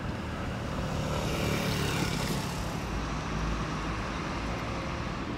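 Street traffic noise, with a vehicle passing about two seconds in.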